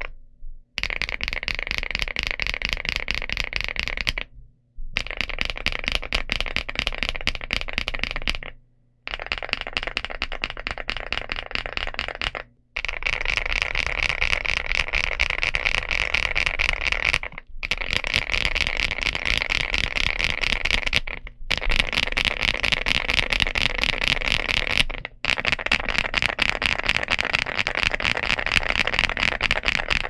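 Fast typing on a Rainy75 mechanical keyboard with KiiBOOM Topaz linear switches and ABS Cherry-profile keycaps: a dense, steady run of keystrokes, broken by several short silences.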